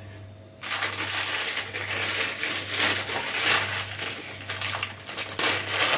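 Plastic wrapper of a pack of ladyfinger biscuits crinkling as it is handled. It starts suddenly about half a second in and goes on in uneven crackly rustles.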